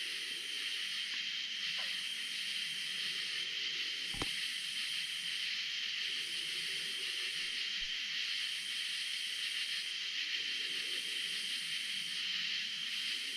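Night insect chorus: a steady high trill with a higher buzz above it that swells and breaks off about every second and a half. A single short knock about four seconds in.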